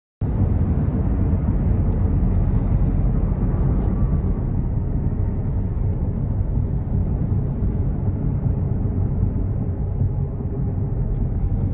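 Steady low rumble of wind and road noise inside a car driving at highway speed through a strong windstorm.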